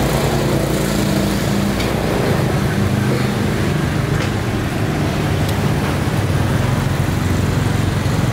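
Street traffic with a motor vehicle engine running steadily close by, a constant low hum over general roadway noise.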